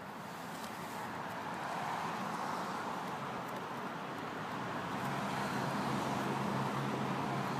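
Road traffic: the rush of a car going by swells and eases, and a steady low engine hum joins about five seconds in.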